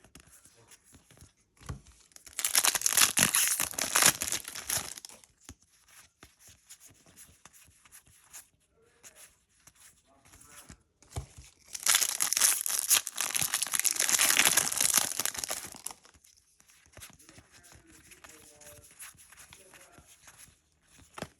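Foil Pokémon booster pack wrappers crinkling and tearing open in two spells of about three seconds each, about two seconds in and near the middle, with faint card-handling clicks between.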